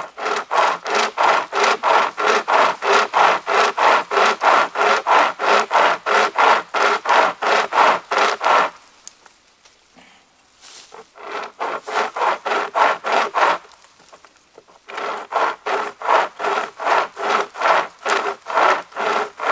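Pocket chainsaw, a hand-pulled toothed chain, sawing back and forth through a dead fallen log with an even rasp of roughly four strokes a second. It comes in three bouts, the first and longest ending about nine seconds in, with short pauses between them.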